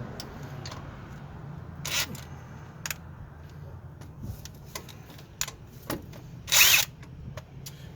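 Handheld power tool run briefly against a bolt, with clicks and knocks of metal handling between runs; the loudest, a short burst, comes near seven seconds in.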